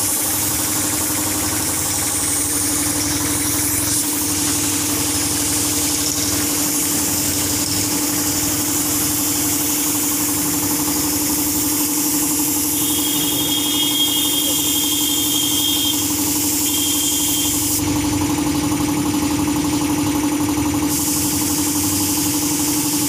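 Air compressor running with a steady hum while a paint spray gun hisses. The spray gun's hiss stops for about three seconds near the end, then starts again.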